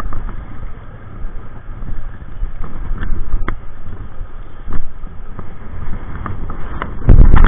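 Wind buffeting the microphone as an uneven low rumble, with a few faint clicks, rising suddenly to a much louder rumble near the end.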